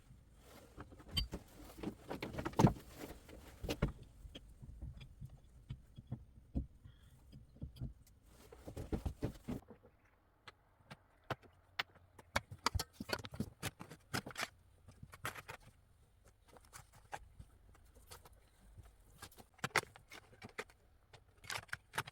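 Irregular light clicks, taps and knocks, louder and denser in the first few seconds; the background hush changes abruptly about ten seconds in.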